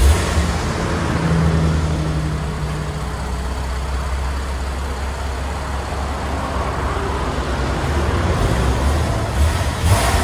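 2013 Porsche 911 Carrera S flat-six running at idle, its exhaust heard at the tailpipes through factory mufflers and resonators fitted with new quad tips: a steady low note, with a couple of brief louder pulses near the end.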